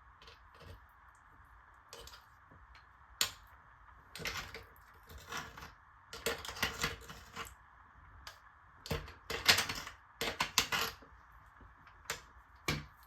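Irregular clicking and clattering in short bursts of up to a second, from hands and tools working at a clogged shower drain.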